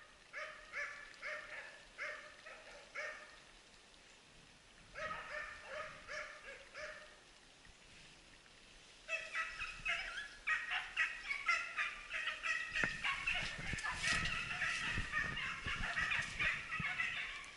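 Faint baying of a pack of hunting hounds giving tongue in the drive: bouts of repeated bays at first, then from about halfway a near-continuous chorus of many dogs.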